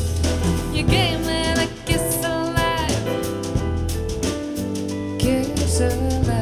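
Jazz song with a singer over bass and drum kit, played back through in-ear monitors for a sound comparison; a wavering sung phrase comes about a second in.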